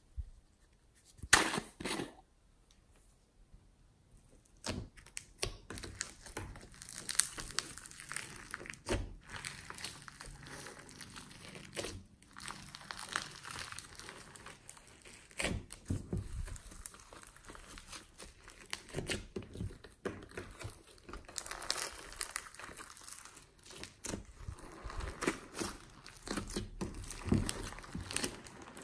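Glossy slime kneaded and folded by hand over a layer of foam beads, giving a dense run of small clicks and pops with wet squelches from about five seconds in. A single sharp clack comes about a second in.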